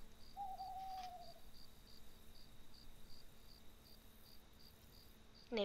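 Faint cricket chirping, an even run of high chirps about three a second, with a short, slightly falling whistle-like tone in the first second.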